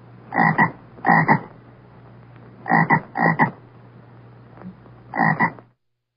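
A frog croaking five times, each croak a quick double note, over a steady low hum. The sound cuts off suddenly near the end.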